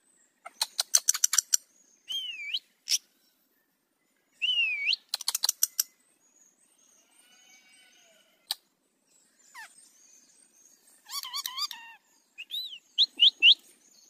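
Indian ringneck parakeets calling: bursts of rapid chattering squawks and bent, whistled notes. The middle goes quieter, and near the end come wavering calls and a quick run of rising whistles.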